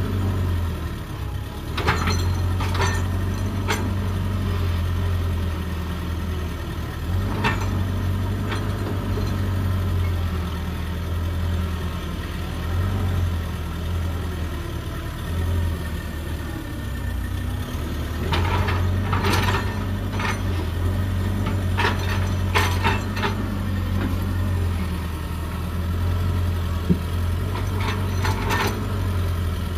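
Hydraulic excavator's diesel engine running steadily, with clusters of sharp cracks and knocks from the working machine, around two seconds in, near the middle and near the end.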